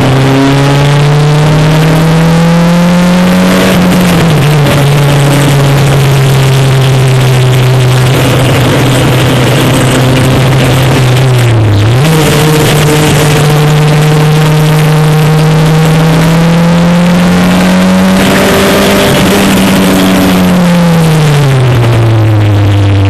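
Single-seater racing car's engine heard from on board, running hard at full throttle. Its pitch rises, drops sharply about four seconds in, dips briefly about halfway, climbs again, then falls away near the end as the car slows.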